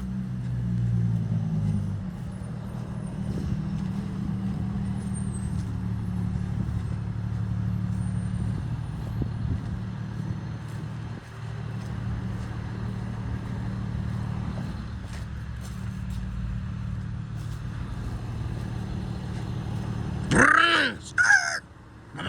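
Steady low hum of a running motor vehicle engine or nearby road traffic. Near the end comes a short, loud, harsh call.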